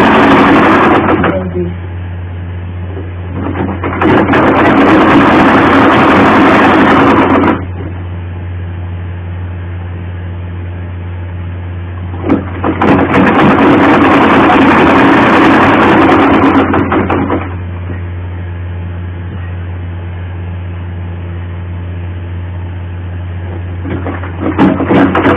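Sewing machine stitching through fabric in runs of a few seconds, stopping and starting again four times, with a steady low hum underneath.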